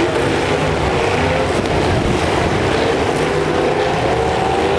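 Demolition derby trucks' engines revving hard as they push against each other in mud, several engine pitches wavering up and down over a steady rumble.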